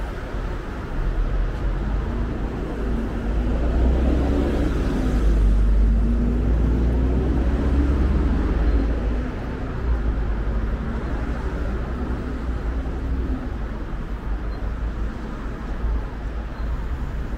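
Road traffic on a city street: a steady low rumble of vehicles, with a bus engine humming at the curbside stop. The rumble swells from about a second in and eases after about eight seconds.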